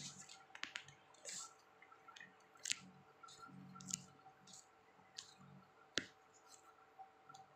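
Close-up eating sounds of satay being chewed: irregular wet mouth clicks and lip smacks, with a sharper click about six seconds in.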